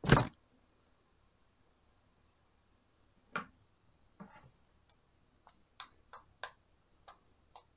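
A loud knock right at the start, then a scatter of sharp clicks and pops as fingers press the silicone bubbles of a pop-it fidget spinner built from plastic jigsaw cubes. The clicks come more often in the second half, about seven of them.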